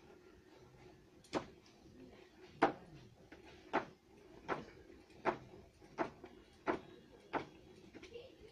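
Large hand-turned potter's wheel spinning, giving a sharp click or knock about once a turn, which comes faster at first and then settles to about one every 0.7 s, over a faint steady hum.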